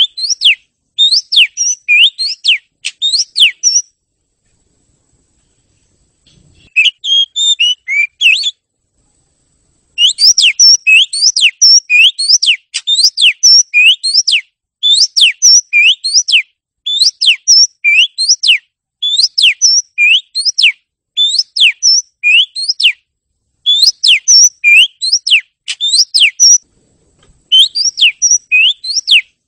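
Oriental magpie-robin singing: bursts of three to five quick rising whistles, each burst about a second long, repeated with short pauses. After one longer silence of a couple of seconds comes a short run of lower, rougher notes, then the rising whistles again.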